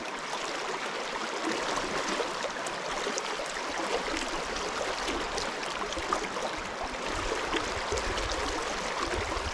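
Creek water flowing steadily, an even rushing hiss.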